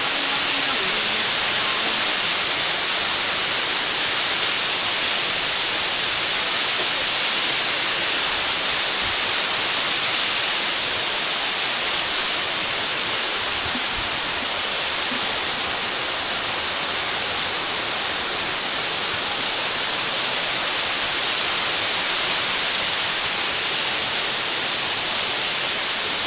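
Waterfall pouring steadily, an even rushing hiss of falling water.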